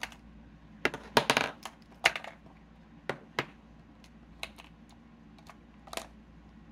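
Makeup brushes and small hard makeup items clicking and clacking as they are picked through and handled. There are about a dozen irregular sharp taps, with a quick cluster about a second in.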